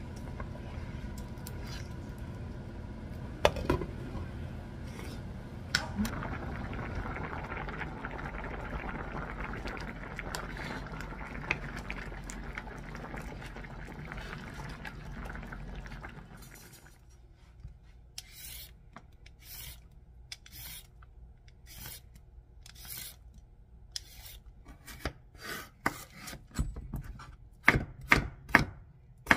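A steel pan of soy-sauce braise with quail eggs simmering with a steady hiss, with a couple of sharp knocks as the eggs go in and a wooden spoon stirs. About 17 seconds in it gives way to a knife slicing cucumber on a wooden cutting board, irregular strokes that get louder near the end.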